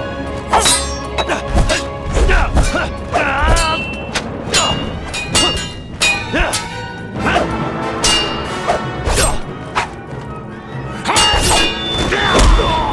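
Dramatic film score under a staged fight: repeated sharp hits and thuds, with a few short shouts of effort.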